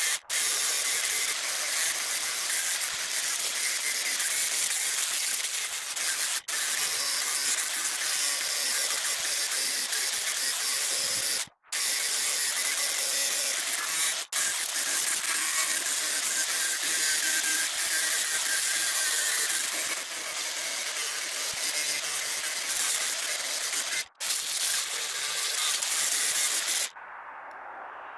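Angle grinder abrading mill scale off steel bar stock: a steady, harsh grinding noise, broken by several abrupt cuts between clips. Near the end it drops to a quieter hiss.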